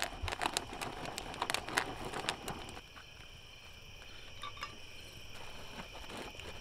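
Sharp pops and crackles in a dense run for the first three seconds, from popcorn popping in a foil-domed pan over a campfire, then only a few stray pops. Crickets chirp steadily throughout.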